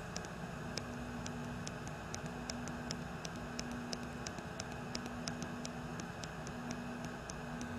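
Faint steady hum and hiss with light, evenly spaced ticks about three a second, from the Hooke radiofrequency unit with its applicator cooling switched on.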